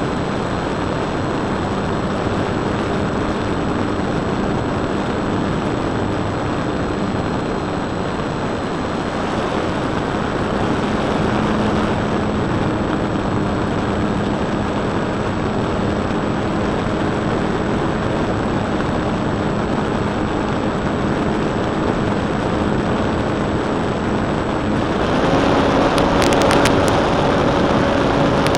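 A radio-controlled Extra 260 model plane's motor and propeller, heard from a camera taped to its underside: a steady buzz under heavy wind rush. Near the end the buzz steps up in pitch and gets louder as the throttle is opened and the plane climbs, with a few sharp clicks.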